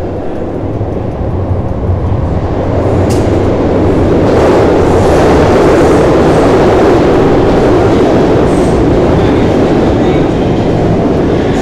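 Subway train rumbling through the station, the loud rumble building over the first few seconds and then holding steady, with a sharp click about three seconds in.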